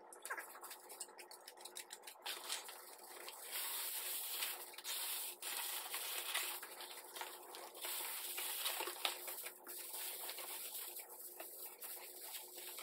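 Aluminium foil crinkling and crackling as it is folded and pressed into place against the inside walls of a cardboard box, a steady run of small crackles.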